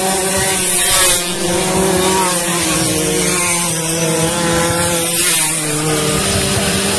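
Several racing pasola scooter engines running hard, their overlapping tones holding a steady pitch that shifts about five seconds in.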